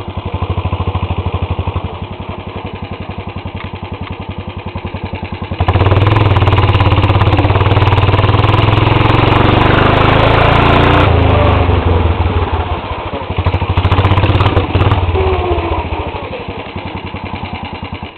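Lawn tractor's small single-cylinder engine running under way. About six seconds in the throttle opens and it runs much louder, easing back about eleven seconds in, with another brief rise and fall near fifteen seconds.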